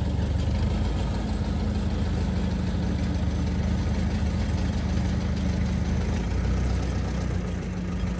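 Diesel engine of a rice combine harvester running steadily, its low tone shifting slightly near the end.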